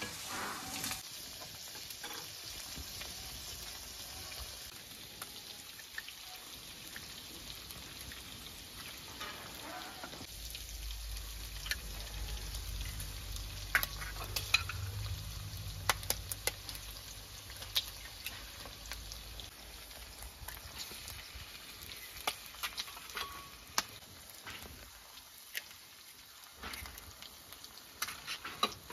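Chunks of sheep meat sizzling in sheep butter in an aluminium pot over wood embers, stirred with a wooden spoon at first. Sharp clicks and pops cut through the steady sizzle, more often from the middle on, and a low rumble comes in for several seconds in the middle.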